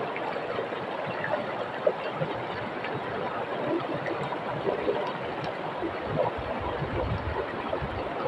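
River flowing over rocks: a steady rush of water with small splashes and gurgles scattered through it.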